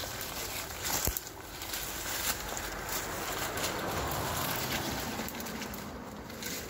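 Footsteps pushing through dense undergrowth: leaves and dry stems rustling and brushing against clothing, with a couple of sharp twig snaps about one and two seconds in.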